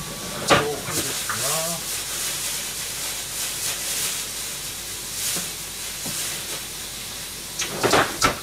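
Thin layer of liquid sizzling and bubbling in a hot nonstick frying pan on a gas burner, with a few sharp clicks near the end.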